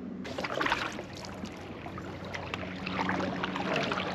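Water splashing and trickling against a kayak hull, in many small irregular splashes, over a low steady hum.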